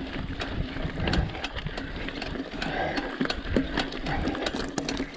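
Mountain bike clattering and rattling over a rough, rocky trail on a downhill run, with many irregular sharp knocks over a steady rumble.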